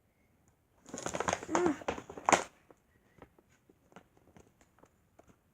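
Mailing bag crinkling as tape is peeled off it: a dense burst of crackling for about a second and a half, ending in one sharp crackle, then scattered light ticks and rustles.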